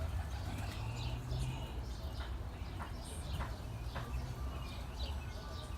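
Nestling birds chirping: many short, high calls repeated over and over, with a few faint ticks and a steady low rumble underneath.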